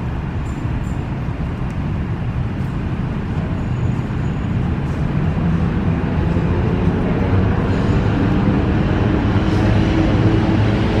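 Steady road traffic noise, with a vehicle's engine growing louder in the second half.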